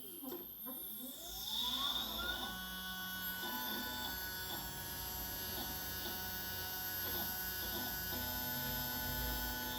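SkyWatcher EQ6-R Pro equatorial mount's stepper motors whining. In the first two seconds the pitch glides down and then back up, then it settles into a steady electric hum of several tones that changes pitch a few times. The owner finds the sound odd.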